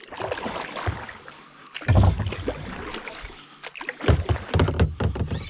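Water splashing with hollow knocks and thumps on a kayak hull as a large hooked smallmouth bass is fought and brought alongside the boat. There are heavy thumps about two seconds in and again in the last second and a half.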